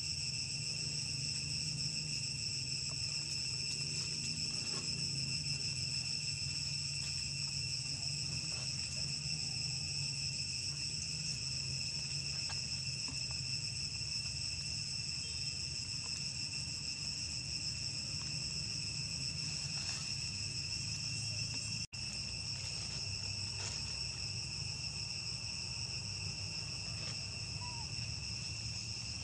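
Steady insect chorus: a continuous high-pitched drone held at a few fixed pitches, over a low steady hum. It cuts out for an instant about three-quarters of the way through.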